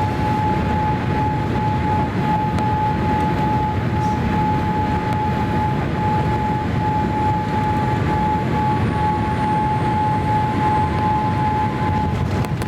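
Steady cabin noise of a Boeing 787-8 from its Rolls-Royce Trent 1000 engines and the airflow, with a steady whine held on one pitch.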